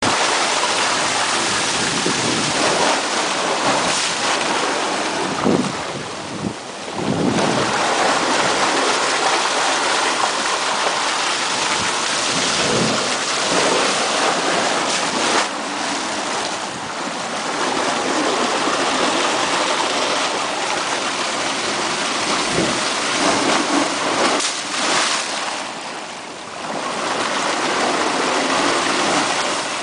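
Seawater surging and churning in a rock blowhole, with spray blasting up out of it: a loud, steady rush of water that eases briefly twice, about six seconds in and near the end.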